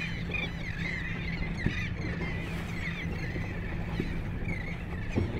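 Many short overlapping calls from a seabird nesting colony, over the steady low hum of a boat's motor running.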